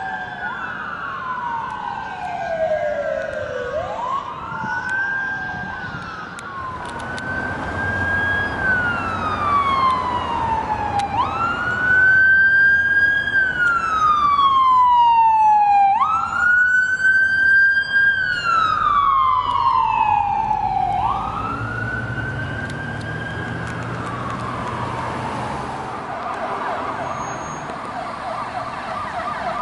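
Electronic sirens of emergency vehicles on a response, running the wail: each cycle rises quickly and then falls slowly, about every four to five seconds, with two sirens overlapping at first. Near the end the siren switches to a fast yelp, with truck engine noise underneath.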